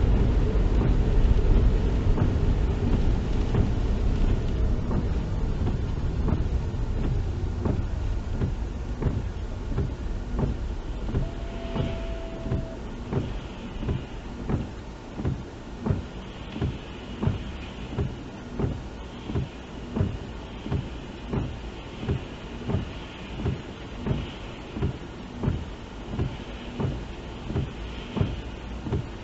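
Inside a car: engine and road noise fading as the car slows to a stop, then the turn-signal indicator clicking steadily at about one and a half clicks a second for a left turn. Softer swishes every couple of seconds fit the windscreen wipers in rain, and there is one short steady tone about twelve seconds in.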